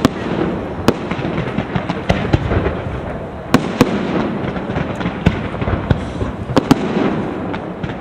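Aerial firework shells bursting in quick succession: sharp bangs about every second, over a dense, continuous background of smaller reports.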